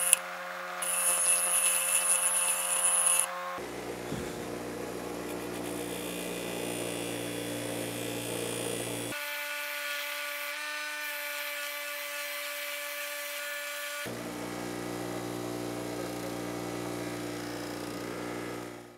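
Bench grinder running with a steady motor hum while a cut steel weld test coupon is ground on the wheel to dress the cross-section before etching. The grinding hiss is loudest in the first few seconds, and the sound changes abruptly several times.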